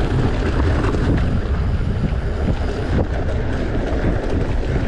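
Mountain bike rolling fast over a rough dirt trail: steady tyre rumble with scattered rattles and knocks from the bike, under heavy wind buffeting on the microphone.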